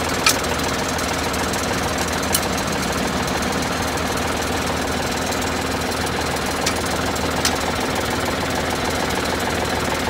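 Tractor engine running steadily, with a few sharp clicks scattered through it.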